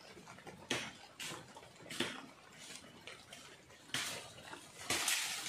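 Wooden poles knocking and clattering against each other as they are handled and laid across a stick frame: a few separate sharp knocks, then denser rustling and clatter near the end.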